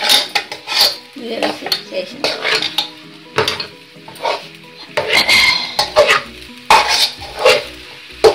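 A spoon scraping and clanking against a metal kadai as thick rice upma (uppudu pindi) is stirred and turned over, in irregular strokes about one or two a second, with a sharp clank near the end.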